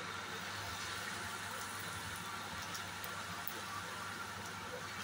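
Rice-flour chekkalu deep-frying in hot oil: a steady sizzling hiss with a few faint crackles.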